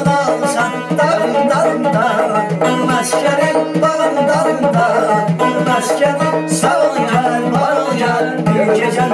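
Live Azerbaijani folk music: a gaval frame drum beating a steady rhythm under a plucked tar and an acoustic guitar, with singing over them.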